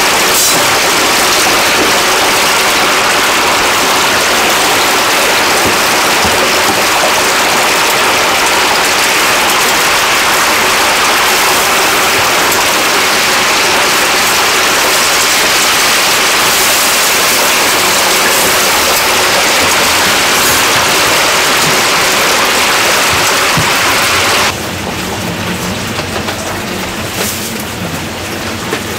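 Whole chickens deep-frying in a vat of hot oil, a loud, steady sizzle. About three-quarters of the way through it drops abruptly to a quieter background.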